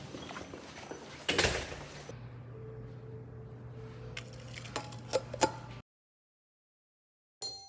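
Quiet room sound with a low steady hum and a few scattered clicks and knocks, plus a brief clatter about a second in. It cuts to dead silence near the end, followed by a short bell-like chime.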